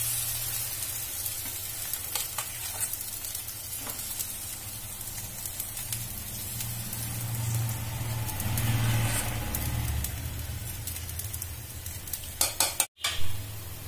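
Semolina appe batter sizzling in a hot, lightly oiled appe pan as spoonfuls are dropped into its cavities. A metal spoon clicks against the pan a few times, with a quick run of clicks near the end.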